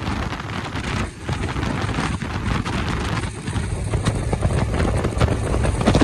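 Wind buffeting the microphone over the running engine and road noise of a TVS Apache RTR 4V motorcycle cruising at highway speed, about 80 to 90 km/h.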